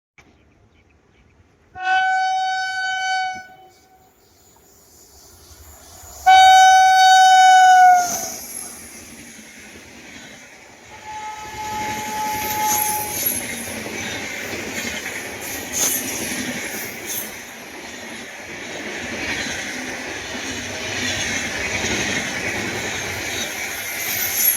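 Train horn sounding two blasts, the second longer and louder and dropping in pitch as it ends, then the train passing close with a steady rumble and wheels clattering over the rail joints.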